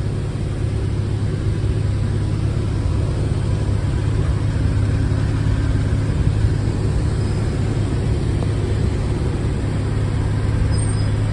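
Porsche 911 Carrera S 3.8-litre flat-six with sport exhaust idling steadily, heard from inside the cabin as a low, even hum.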